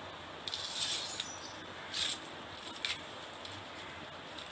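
Small knife blade scraping and slicing along a dry coconut leaflet, stripping the leaf from its thin rib: a few short, dry rasps, the longest about half a second in and another about two seconds in.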